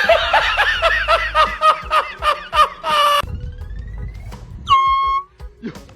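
A person's high-pitched yelling in rapid bursts for about three seconds, startled by an air horn, then a short air horn blast about five seconds in.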